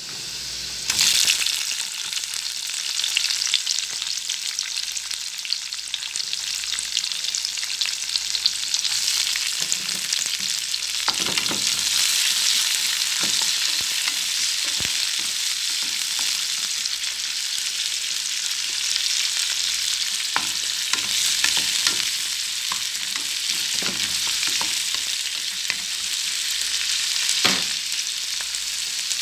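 Chopped garlic and onions sizzling and crackling in hot oil in a metal frying pan, stirred with a wooden spatula that knocks against the pan now and then. The sizzle swells suddenly about a second in.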